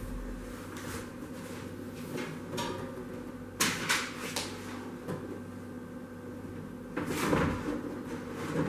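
Steady low hum of workshop machinery, with sharp knocks about three and a half seconds in and a longer clatter around seven seconds in as material and machine parts are handled.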